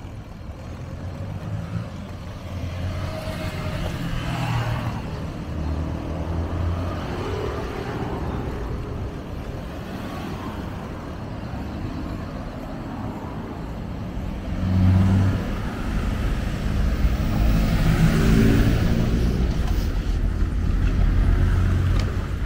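Road traffic: cars passing by over a steady low rumble, with one swell a few seconds in and a longer, louder one in the second half.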